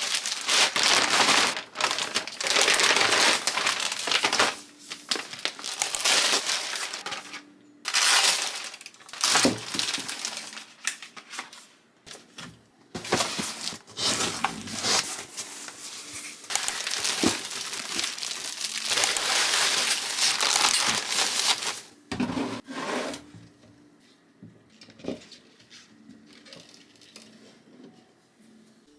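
Packaging crinkling and rustling as it is handled by hand, loud and continuous in bursts for most of the stretch, then quieter, scattered rustles near the end.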